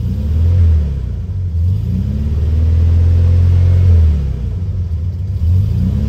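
A 1972 VW Beetle's air-cooled flat-four, just started cold and heard from inside the cabin, is revved up and let back down three times, the middle rev held for about two seconds. It runs smoothly without shaking or misfiring now that its ignition faults are fixed.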